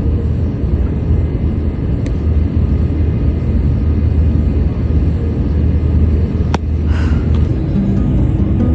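Steady low rumble of outdoor background noise, with one sharp click about six and a half seconds in and music starting near the end.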